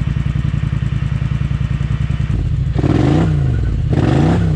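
ATV engine idling with an even pulse, then revved in two short bursts about halfway in, the pitch rising and falling each time.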